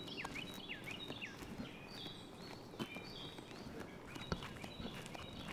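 Footsteps on an asphalt path, with a few sharper taps, over birds chirping and whistling in the background.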